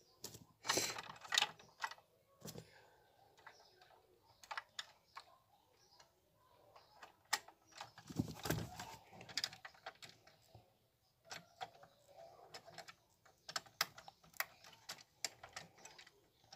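Irregular small clicks, taps and scrapes of the plastic and metal parts of a 1:18 diecast model car as they are handled and pushed into place, with a denser, louder cluster about a second in and another around the middle.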